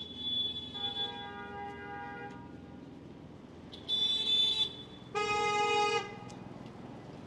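Car horns honking in street traffic, three honks of different pitches. A long one lasts about two seconds at the start, then two shorter ones come about four and five seconds in, the last one lower and full.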